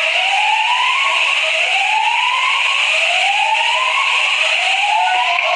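Alarms wailing after a street explosion: a rising whoop that repeats about once every second and a bit, with a second whoop overlapping out of step, over a dense high ringing hiss.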